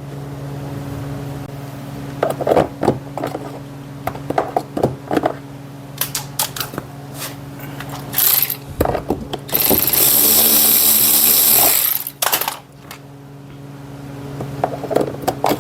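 Clicks and knocks of hand tools at the bottom of a car door, then about two and a half seconds of a power driver running, apparently backing out one of the door panel's 7 mm screws, over a steady low hum.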